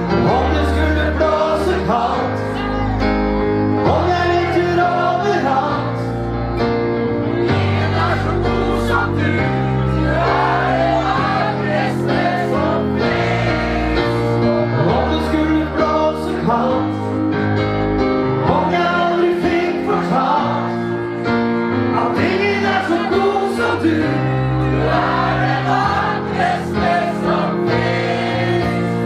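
Live pop ballad: a man singing into a microphone over sustained keyboard chords and bass notes, with many voices singing along.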